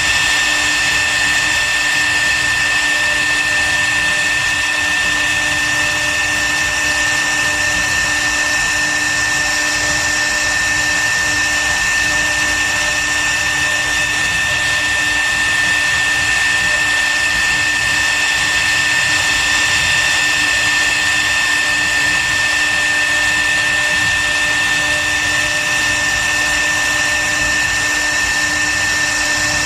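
CNC router spindle running steadily while carving wood: an unchanging high-pitched whine over a hiss of cutting.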